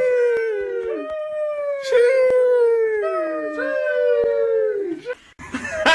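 A dog howling: a series of long, held howls, each sliding down in pitch at its end.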